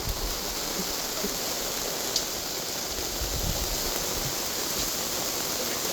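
Heavy rain coming down, a steady, even rush of water noise.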